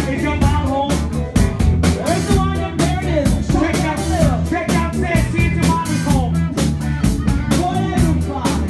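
Live band playing amplified through a PA, with drum kit, bass and a singer's voice over a steady beat.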